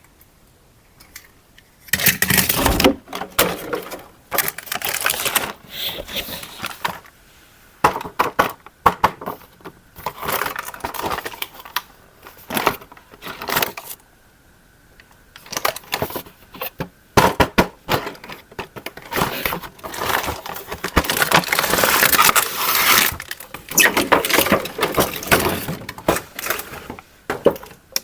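Crackling and crinkling of packaging being handled, in irregular bursts of a few seconds with short pauses between them.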